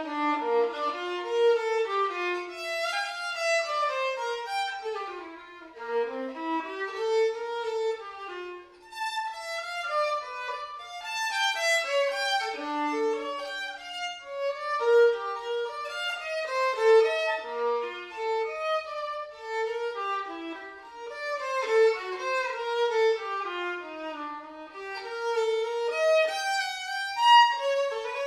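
A violin playing a quick melody of many short notes, with no accompaniment beneath it.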